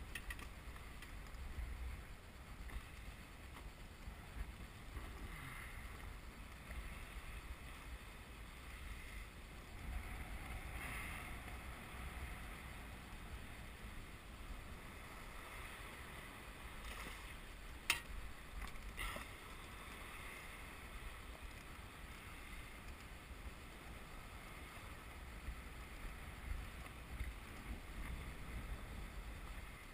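Wind rumbling on the microphone and small waves lapping against an inflatable boat's hull, with one sharp click a little past the middle and a weaker one a second later.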